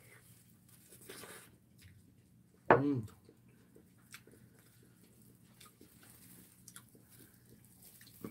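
Close-up eating sounds: soft chewing and small clicks of chopsticks and food handling, over a faint low hum. About three seconds in comes one short, loud vocal grunt from the eater.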